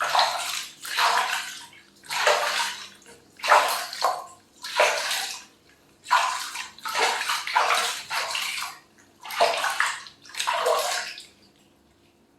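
Bath water poured or splashed over a baby monkey being washed, in about ten separate gushes roughly a second apart, stopping about eleven seconds in.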